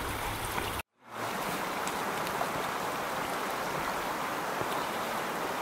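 Steady rush of a flowing trout stream running through riffles, cutting out for a moment about a second in.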